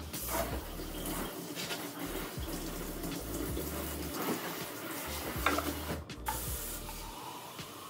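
Kitchen faucet running steadily into the sink as plant roots are rinsed under the stream, with a few light knocks.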